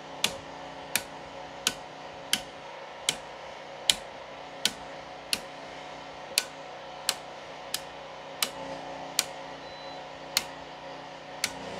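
Circuit breakers in a home breaker panel being switched on one after another: about fifteen sharp clicks, roughly one every 0.7 s, as the house circuits are put on generator power. A steady hum runs underneath.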